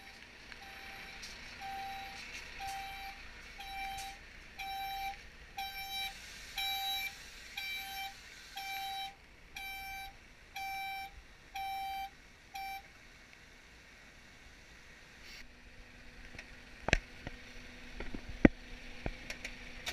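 Flatbed tow truck's reversing alarm beeping about once a second, stopping about 13 seconds in. A few sharp knocks follow near the end.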